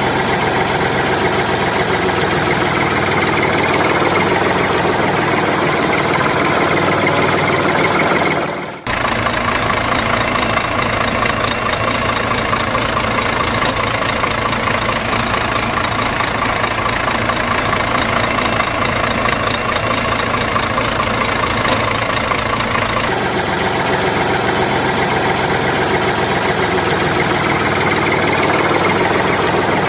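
Heavy truck diesel engine idling and running steadily, a sound effect laid over the picture. The engine sound changes abruptly about nine seconds in, and again at about twenty-three seconds.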